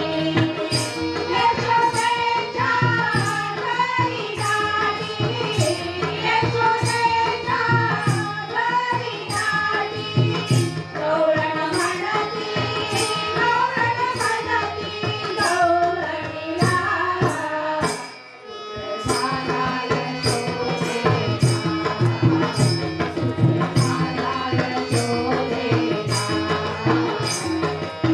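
A woman singing a gavlan, a Marathi devotional folk song, over a steady percussion beat, with a short break about two-thirds of the way through.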